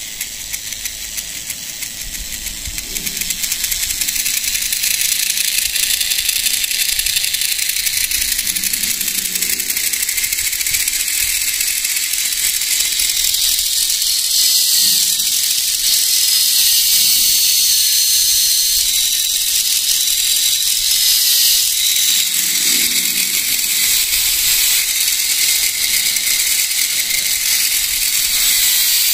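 Small DIY RC gearbox driven by a brushless motor salvaged from a DVD drive, running at speed: a steady high gear whir made of fast, fine clicking. It gets louder about three seconds in.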